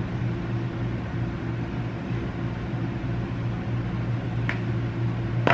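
Steady low mechanical hum, like a running fan or appliance motor, with a couple of faint clicks near the end.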